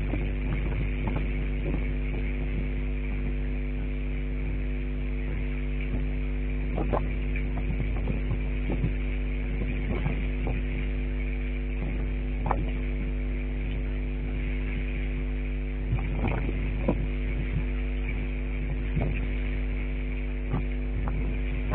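A steady electrical-sounding hum made of several unchanging tones over a deep low drone, with scattered light clicks and ticks.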